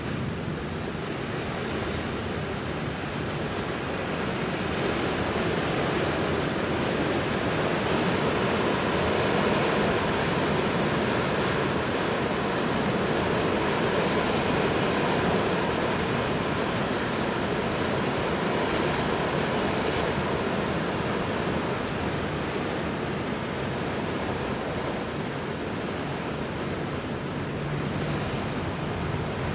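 Steady wash of sea waves with wind, swelling a little around the middle and easing again.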